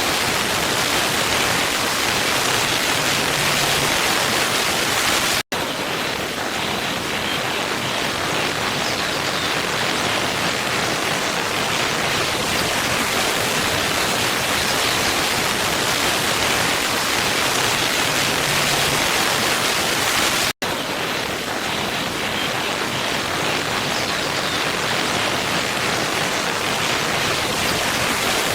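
Waterfall ambience: a steady, even rush of falling water. It cuts out for an instant twice, about five seconds in and again about twenty seconds in.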